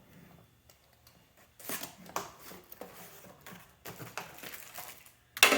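Packaging being handled and unwrapped: crinkly rustling and swishing in bursts, with a sharp, louder crackle near the end.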